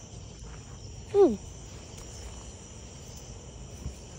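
Steady, high insect chorus of crickets chirping continuously. About a second in, a brief falling vocal sound, a short 'hmm' or 'oh' from a child.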